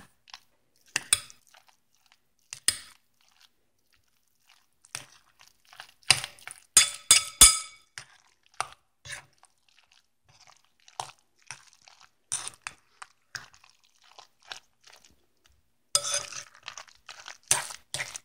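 A spoon stirring egg salad in a glass mixing bowl: irregular scrapes and clinks against the glass, with wet, soft squishing of the mayonnaise-coated chopped egg. The clinking is busiest about six to seven seconds in and again near the end.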